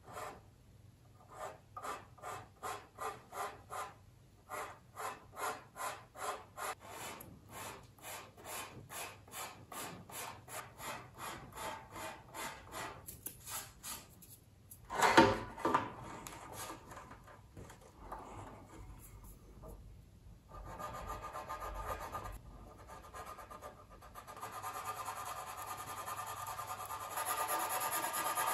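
A hand tool rubbed back and forth along the glued seam at the bow of a plastic model ship hull, taking down built-up sprue glue. Even strokes about two a second, one loud knock about halfway, then faster, continuous rubbing that gets a little louder near the end.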